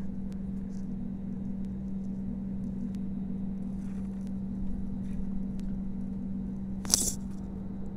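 Steady hum of an airliner's jet engines while taxiing, heard from inside the cabin, with a constant low drone. A single sharp click about seven seconds in.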